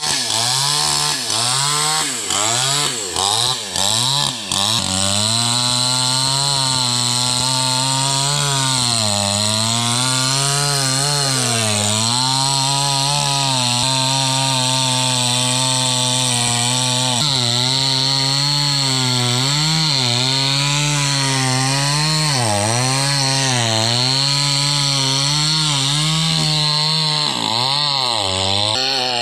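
DBL two-stroke petrol chainsaw at high revs, cutting into a tree trunk. Its pitch sags and recovers over and over as the chain bites into the wood under load. There are a few quick throttle blips in the first few seconds.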